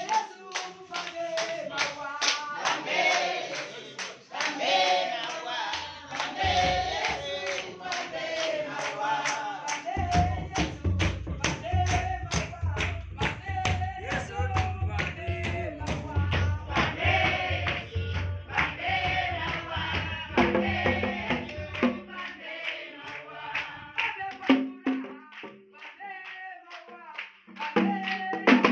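Church congregation singing together to brisk, steady hand clapping, about three claps a second.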